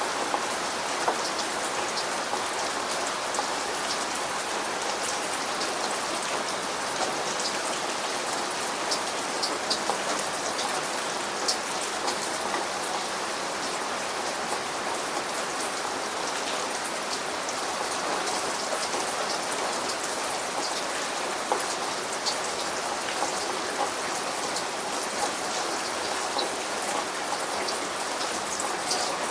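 Steady rain falling, an even hiss with many sharp drops ticking on a surface.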